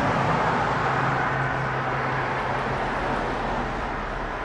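Steady rushing road noise of a moving vehicle, with a low hum that fades about halfway through.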